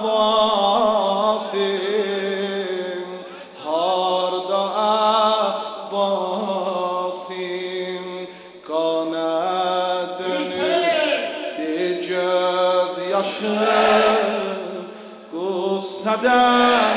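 A man's solo voice chanting a Shia mourning lament (noha), drawing out long wavering melismatic vowels between the words, with two brief breaks about four and nine seconds in.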